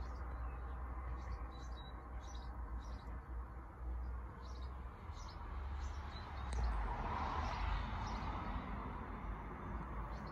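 Small birds chirping in short, scattered calls over a steady low outdoor rumble, which swells for a couple of seconds past the middle.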